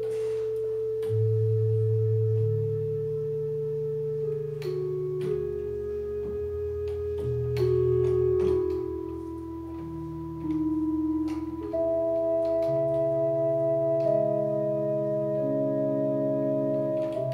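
Portable electronic keyboard playing a slow melody in a soft, sustained voice, with long held notes over low bass notes. Faint clicks are heard between some notes.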